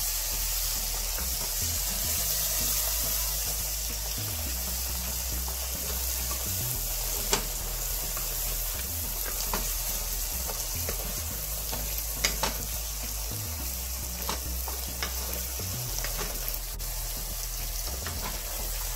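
Sliced onions and spice pastes sizzling steadily in hot oil in a nonstick pot as they are stir-fried into a masala, with a few sharp clicks of the wooden spatula against the pot.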